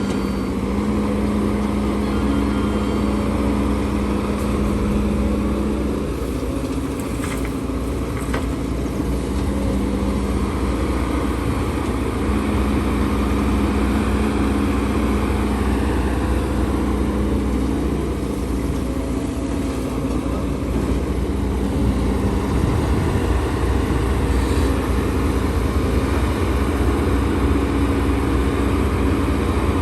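Heavy diesel machinery running steadily, a HIDROMEK HMK230LC excavator working while loading a dump truck, with the engine note stepping up and down now and then as the load changes.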